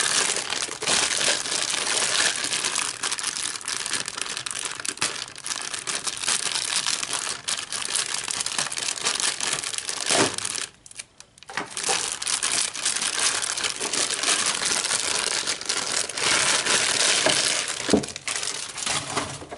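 Clear plastic bag crinkling and rustling almost without let-up as hands pull it open and off a foot pedal, with a short pause about halfway through.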